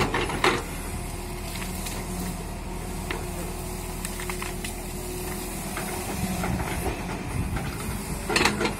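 JCB tracked excavator's diesel engine running steadily with a hiss as the boom and bucket work, with a couple of sharp knocks right at the start and a few more near the end.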